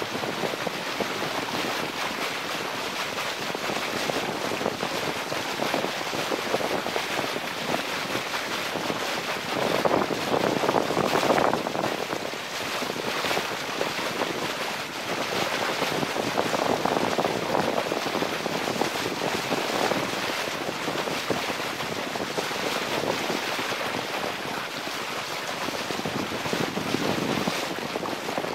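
Water rushing and splashing along the hull of a Lancer 25 sailboat under sail, with wind buffeting the microphone. The rush swells louder about ten seconds in.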